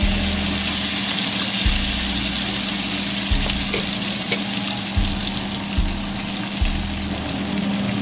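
Steady sizzling hiss of food frying in a pan, with light crackles, over background music with a steady bass beat. The sizzle cuts off suddenly near the end.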